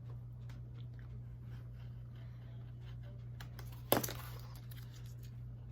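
Hobby knife cutting through thin cardboard: faint crunching, scratching strokes over a steady low hum, with one sharp knock about four seconds in.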